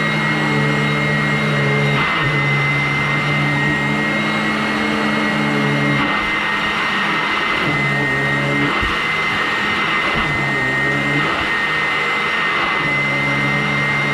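Vacuum cleaner running steadily with a high, constant motor whine over a rushing hiss. A lower droning tone cuts in and out every few seconds.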